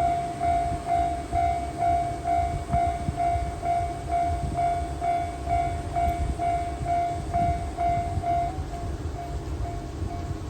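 Japanese level-crossing alarm ringing its repeated electronic bell tone, about two strikes a second, over a low rumble. The ringing becomes fainter about eight and a half seconds in.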